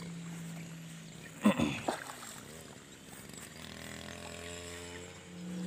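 A motor hums steadily at a low pitch. A person gives one short, loud exclamation about a second and a half in.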